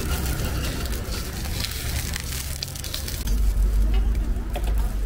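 Sorghum hotteok dough frying in oil on a flat griddle, a steady sizzle over a low rumble, with a few small clicks.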